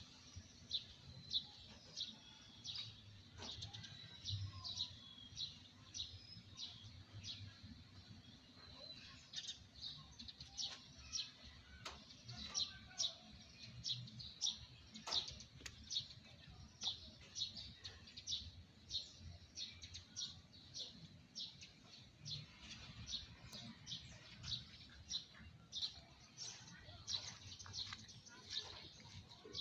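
Small birds chirping in the trees: many short, high chirps, several a second, keeping on steadily.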